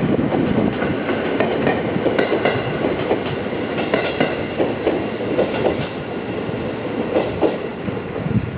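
Train passing at close range, its wheels clattering over the rails with irregular clicks.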